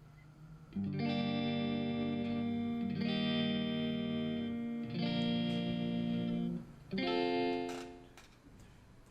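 Guitar playing four slow chords, each struck once and left to ring for about two seconds, the last one fading away near the end.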